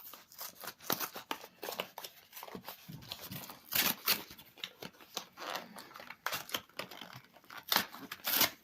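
Plastic wrap and cardboard packaging of a trading-card theme booster being torn and crinkled open, in irregular crackling rips, the loudest about four seconds in and near the end.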